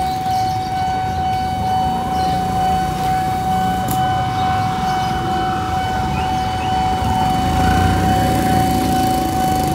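Railway level-crossing warning alarm sounding one steady, unbroken high tone, the signal that a train is approaching, over the low running of waiting motorcycle and auto-rickshaw engines.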